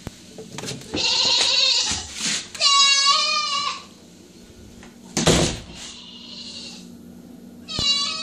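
A pet animal left alone crying out in long, high-pitched wails of about a second each: two in the first half and another starting near the end. A single knock sounds about five seconds in.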